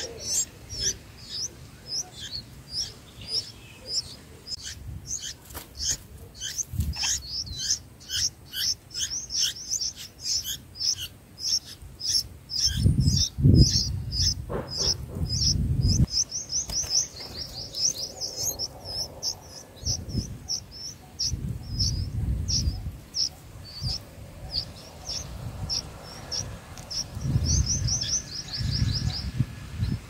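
Nestling songbirds begging: a long run of short, high cheeps, several a second, quickening into fast trills in places. Bursts of low rumble come and go, the loudest about halfway through.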